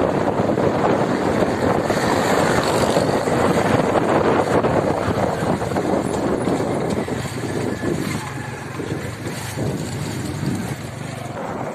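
A car driving along, its road and wind noise heard as a steady rush that eases a little about eight seconds in.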